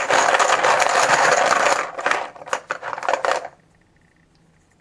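Plastic chips rattling as they are shaken hard in a container, then a few loose clatters as one is drawn, stopping about three and a half seconds in.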